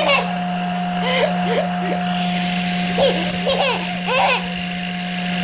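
A small child's high-pitched squeals and giggles, several short ones with sliding pitch, over a steady hum with a thin continuous tone.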